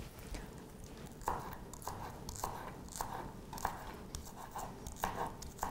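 A kitchen knife cutting on a foil-lined tray of fried food: a series of short crunchy cuts, starting about a second in.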